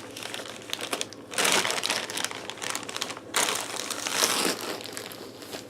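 Parcel packaging crinkling and rustling as it is handled and unwrapped, with two louder bouts of rustling and scattered small clicks.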